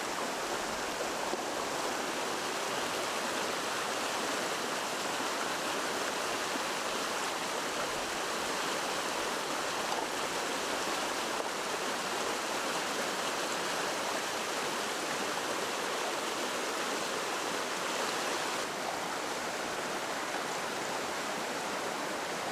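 Steady rush of flowing water, an even hiss without distinct splashes.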